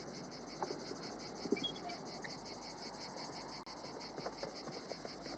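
Crickets chirping in a steady, rapid pulse, about four or five chirps a second, with faint scattered clicks and scrapes.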